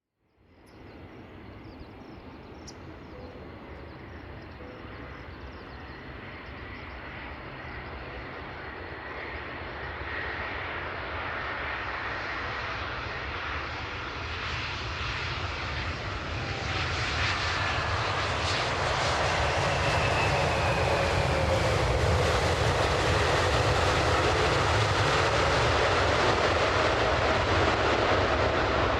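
ANA Boeing 787-8's Rolls-Royce Trent 1000 turbofans on landing approach: a steady jet rumble and whine that grows louder as the airliner comes in, with whining tones that fall in pitch in the second half as it passes.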